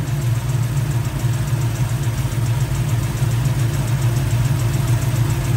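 LS3 6.2-litre V8 idling steadily at full operating temperature.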